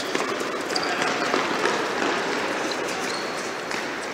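Many people's running footsteps and shoe squeaks on an indoor tennis court: a dense clatter of many small steps, with a couple of brief high squeaks, slowly fading.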